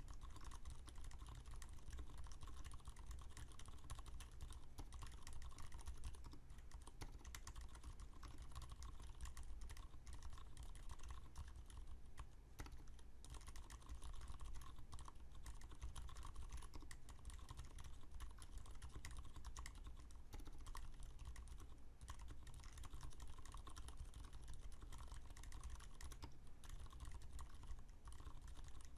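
Continuous fast typing on a custom mechanical keyboard with lubed Cherry MX Silent Red switches, giving soft, muted keystroke clicks, with a short pause about twelve seconds in.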